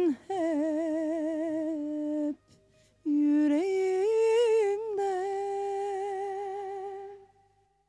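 A child's voice humming the melody alone, with no accompaniment: a long wavering note, a short break about two and a half seconds in, then a second long note with vibrato that fades out near the end.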